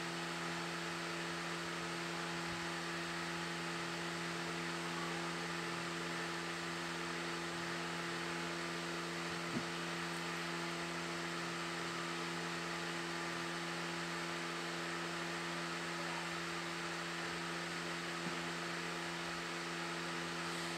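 Steady low electrical hum with a faint hiss, made of several fixed tones, and a single small click about halfway through.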